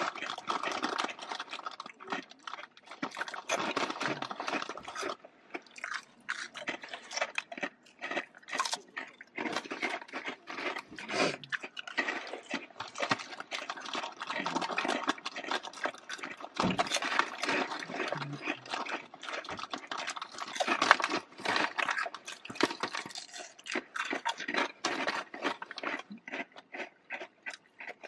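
Crisps being crunched and chewed close to the microphone, a dense run of irregular crackles.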